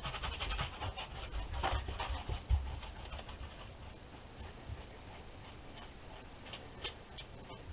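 Paintbrush scrubbing wet acrylic paint back and forth across a painting board: a rasping rub of bristles, busiest in the first few seconds, then lighter strokes with a few small ticks.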